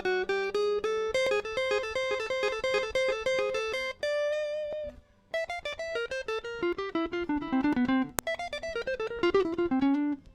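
Electric guitar played clean through a Zoom G1X ON multi-effects pedal set with a compressor and graphic EQ, picking quick single-note melody lines in chicha style. There is a short break about five seconds in and a sharp click near eight seconds.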